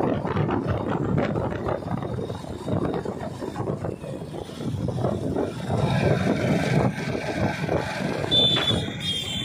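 Road and traffic noise from riding on a moving two-wheeler in city street traffic. A thin high-pitched tone comes in near the end.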